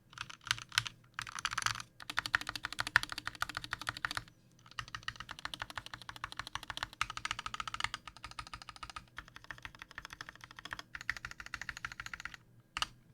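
Fast typing on a Glorious GMMK Compact 60% mechanical keyboard with lubed Gateron Yellow linear switches and Havit Pudding keycaps: a dense run of key clacks, with brief pauses about four seconds in and near the end.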